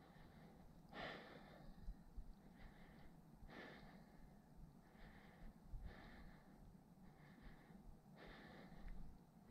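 A climber's faint breathing close to the microphone: about five breaths, one every second or two.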